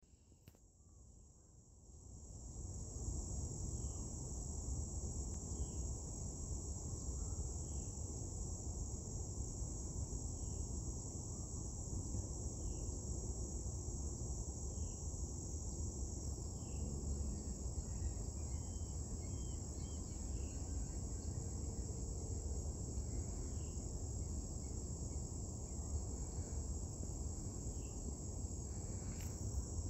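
Steady high-pitched chorus of crickets, over a low steady rumble, with scattered faint short chirps. It fades in over the first couple of seconds.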